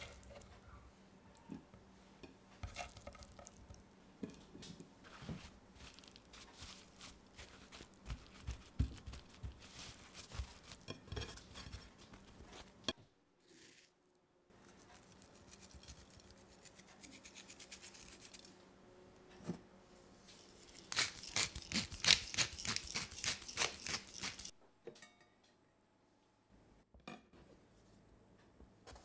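Kitchen food-prep sounds: scattered light knocks and taps as firm tofu is cut and set down, then, after a short pause, work in a stone mortar, with a quick run of louder scraping strokes lasting a few seconds.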